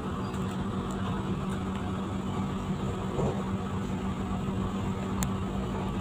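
Steady rumble of the Jayabaya passenger train with a constant low hum, and a faint tick about five seconds in.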